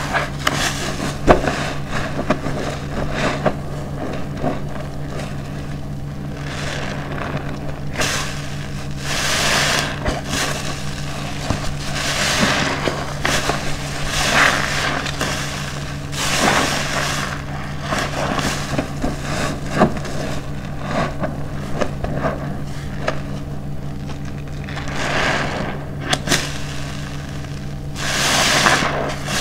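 Hands squeezing and kneading a car wash sponge soaked in thick dish-detergent lather over a basin of soapy water: wet squelches with crackling foam, in repeated bursts at irregular intervals, over a steady low hum.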